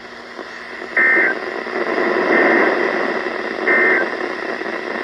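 Weather radio receiver hissing with static, broken by three short bursts of warbling EAS digital data tones. These are the end-of-message signal that closes the alert broadcast.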